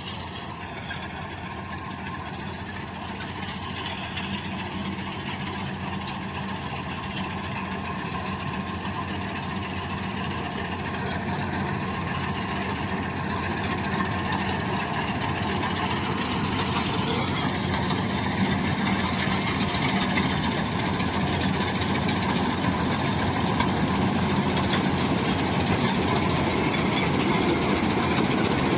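Kartar 4000 combine harvester's engine running, growing steadily louder as it draws nearer.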